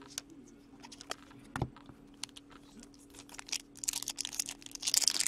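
Trading cards being handled: small clicks and taps as the cards are shuffled and tapped together, with one knock about a second and a half in. Near the end, the wrapper of a hockey card pack starts crinkling as it is worked open.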